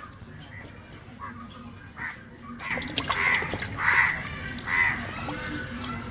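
Raw whole chicken being rinsed again in water, with three loud short calls about three, four and five seconds in.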